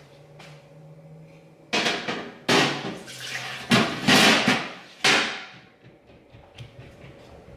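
Water from a kitchen tap splashing into the sink in several loud bursts over about four seconds, then stopping.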